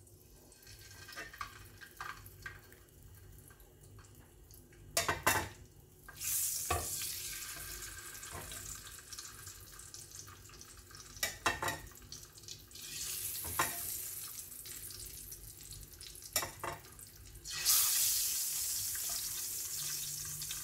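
Whole boiled eggs, scored with a knife, dropped one after another into hot oil in a non-stick frying pan. The oil flares into a loud sizzle three times, each time settling to a steadier sizzle as the eggs fry. A few sharp clicks and knocks fall in between.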